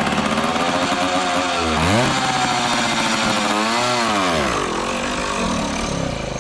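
Old dirt bike engine running just after starting, revved up and back down twice, about two and four seconds in, before settling back.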